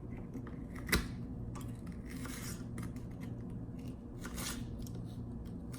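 Kitchen utensils being handled: one sharp metal clink about a second in, then two brief soft scrapes.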